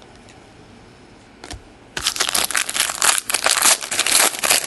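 Foil trading-card pack wrapper being torn open and crinkled by hand, starting about two seconds in with a dense run of crackles.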